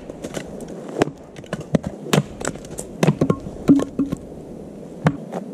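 Axe splitting wood on a stump chopping block: a series of sharp chops, about one a second, as the wood is split into sticks.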